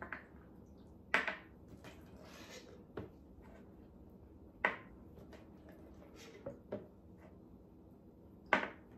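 A spatula scooping mayonnaise into a small measuring cup: a few light knocks and scrapes of the spatula against the cup and jar, the clearest about a second in, near the middle and near the end.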